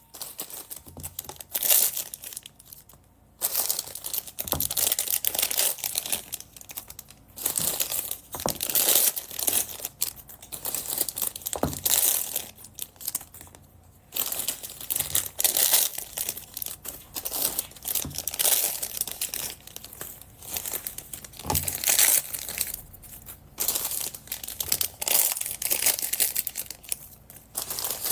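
Small plastic bags of beads crinkling and rustling as they are handled, in irregular bursts with a few sharp crackles.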